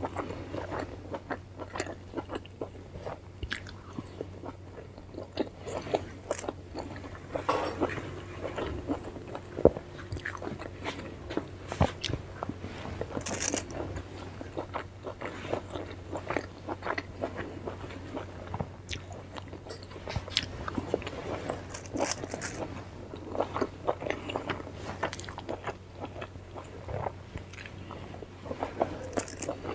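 A person eating steamed momos dipped in sauce, close to the microphone: irregular bites and chewing with many small clicks.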